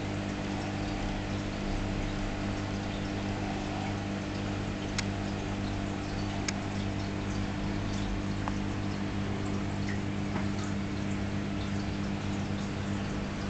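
Reef aquarium's pumps and circulating water: a steady low hum with a constant trickling wash of water over it, and a couple of faint clicks around the middle.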